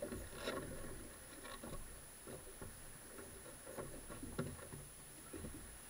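Irregular light knocks and taps from people handling gear on a small fishing boat, over a low rumble.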